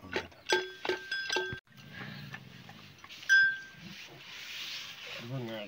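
Metal livestock bells clinking a few times, with one louder ring about three seconds in, and a short wavering call near the end.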